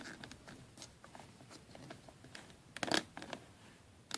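Small plastic toy figures being handled: a Galactic Heroes figure pressed onto the dewback's too-small saddle, with light plastic clicks and taps and a cluster of louder clicks about three seconds in.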